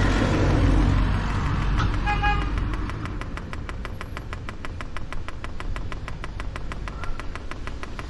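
Diesel heater fuel dosing pump ticking rapidly and evenly while priming, drawing kerosene up the fuel line. A low rumble fills the first couple of seconds, and a short horn-like beep sounds about two seconds in.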